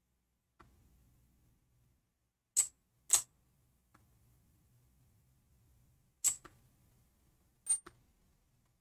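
Sound Keyboard app playing its 'clicks' sound effect as the Artist Pad's on-screen touch buttons are tapped. There are four short, sharp clicks a few seconds apart, two close together early and two later, with a few fainter ticks between them. The clicks are audible feedback confirming each button press.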